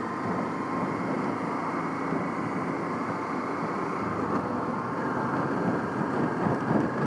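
Honda Africa Twin motorcycle riding at a steady pace: engine running evenly under wind and road noise.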